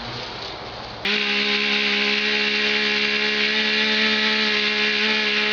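Stihl chainsaw running at high, steady revs, starting abruptly about a second in after a stretch of noisy hiss.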